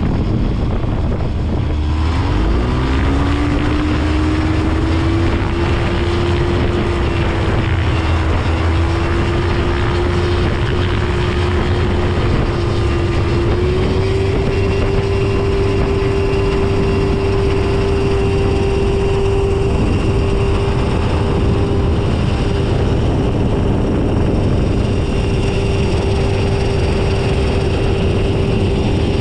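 Phantom ultralight's engine and propeller running, throttled up about two seconds in with the pitch climbing, then rising a step higher about halfway through and holding steady at high power.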